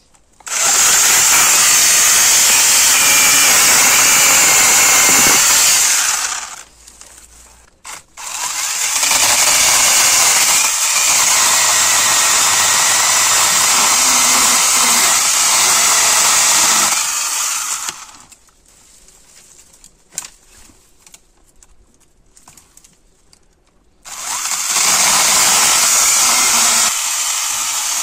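HYCHIKA CS18D 8-inch brushless battery mini chainsaw running and cutting small branches, in three bursts of about five, nine and four seconds with short pauses between.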